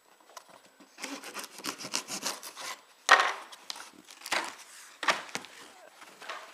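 Cardboard shipping box being opened by hand: rubbing, scraping and tearing of cardboard and packing, with a sharp, loud rip about three seconds in and smaller tears after.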